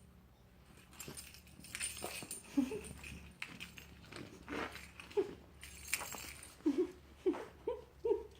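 A dog whining in short, rising-and-falling whimpers, more of them in the second half, over light rustling and clicking from handled packaging.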